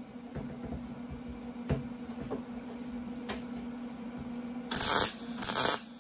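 MIG welder tacking a patch panel onto a sheet-steel car door skin: two short crackling tack welds, about half a second each, near the end. A steady low hum runs underneath.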